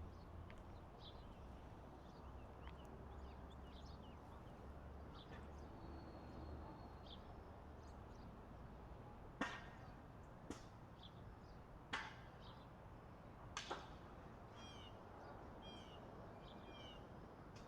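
Faint birds chirping, with a short downward-slurred call repeated several times near the end. Five sharp clicks or knocks fall in the middle and are the loudest sounds.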